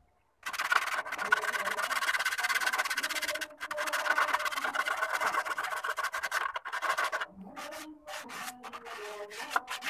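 Homemade mini grass chopper driven by a small toy-car motor, running with a dense, harsh rattling noise. It comes in two long stretches of about three seconds each with a short break between them, then in shorter bursts near the end.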